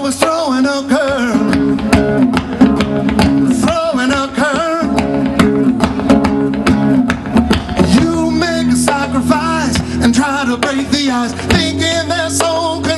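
Live acoustic music: an acoustic guitar played over steady hand beats on a conga, with a man singing along.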